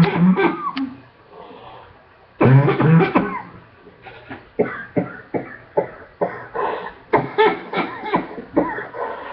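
A person coughing, a lingering chest cough from an illness. Two longer voiced coughs come first, then a run of short hacking coughs about two a second.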